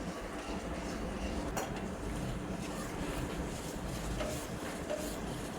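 Workshop machinery running steadily with a faint hum, and a few light clicks or knocks, the sharpest about a second and a half in.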